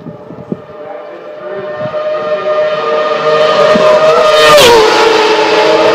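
Racing motorcycle approaching on the road course, its steady high engine note growing louder, then passing close by about four and a half seconds in with a sharp drop in pitch. A second bike is close behind near the end.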